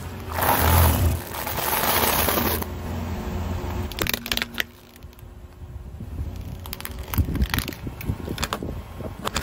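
Dry instant noodles crunching under a slowly rolling car tyre: a loud, dense crunch for about two seconds. After a pause, a car tyre rolls onto a plastic plug adapter and a computer mouse, with a quick run of sharp cracks and crackles near the end.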